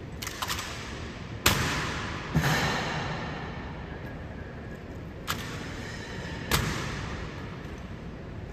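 Honor guard drill: sharp cracks of rifle butts and boot heels striking the floor, four loud ones after a few light clicks, each ringing out in a long echo.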